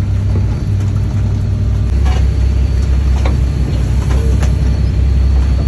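Boat engine running with a steady low drone; its note drops about two seconds in.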